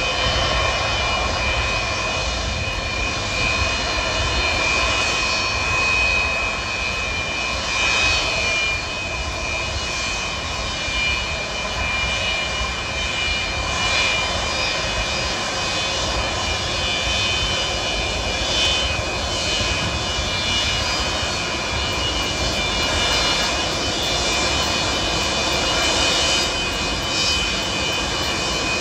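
Antonov An-124-100's four Progress D-18T turbofan engines running at taxi power as the freighter taxis: steady jet engine noise with a high, steady whine over it.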